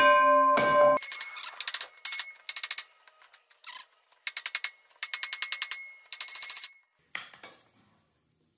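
Hammer blows on a rusty steel dozer track sprocket, the sprocket ringing like a bell with each blow, struck to free it from its final drive splines. This is followed by bursts of rapid, high-pitched metallic clattering that stop a little before the end.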